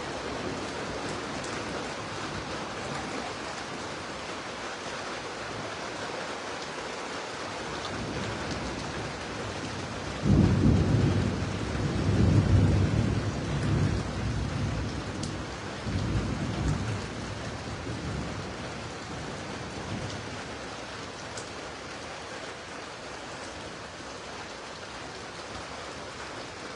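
Heavy rain falling steadily. About ten seconds in, a low thunder rumble breaks in sharply, swells again twice and dies away over roughly ten seconds.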